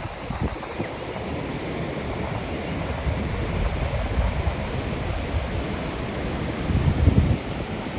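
Ocean surf washing on a beach, a steady rush, with wind buffeting the microphone in low rumbling gusts, the strongest about seven seconds in.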